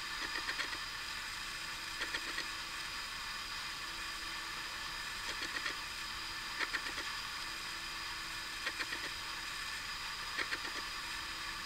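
Steady recording hiss with a faint hum, broken by small clusters of soft clicks every second or two.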